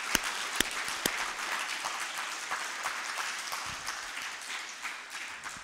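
Church congregation applauding, a dense patter of hand claps with a few sharper individual claps standing out; the applause slowly thins toward the end.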